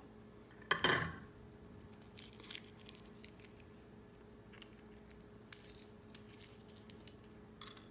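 A serrated kitchen knife slitting a fresh green chilli: one crisp crunch about a second in. Faint clicks and scrapes of knife and chilli against a ceramic plate follow, with a short cluster near the end.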